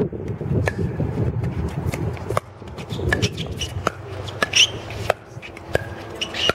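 Pickleball rally: paddles striking the hollow plastic ball back and forth, a string of sharp pocks about once or twice a second.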